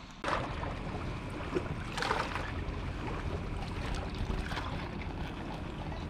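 Steady wind blowing on the microphone over lapping river water, with a short louder rustle about two seconds in.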